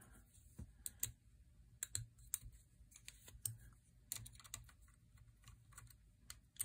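Faint, irregular light clicks and taps of an allen wrench and small metal parts being handled against a Remington 783 rifle action while its factory trigger is taken off.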